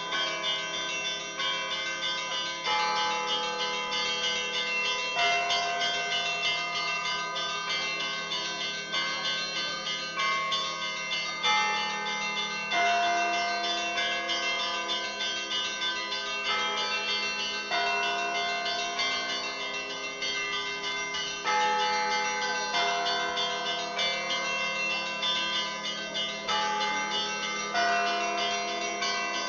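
Russian Orthodox church bells ringing together: low bells keep sounding underneath while smaller bells are struck several times a second in a quick, overlapping rhythm.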